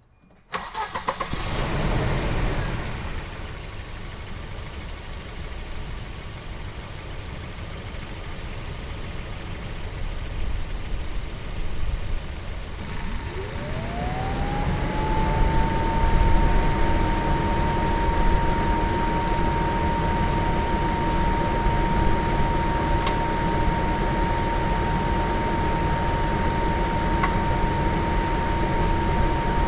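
1990 Volvo 240 DL engine starting with the hood open, then settling into a steady idle. About halfway through, the cooling fan starts up with a rising whine that levels off into a steady tone over the idle.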